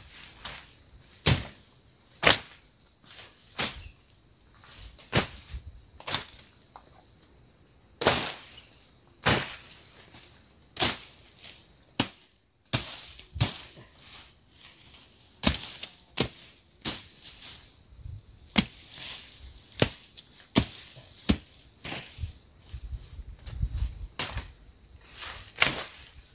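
Blade slashing through brush and undergrowth, one sharp swish-and-chop roughly every second, about twenty strokes in all. Steady high insect buzzing runs underneath.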